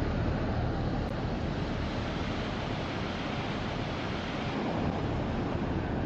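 Surf washing up a sandy beach, a steady rush of breaking waves, with wind rumbling on the microphone.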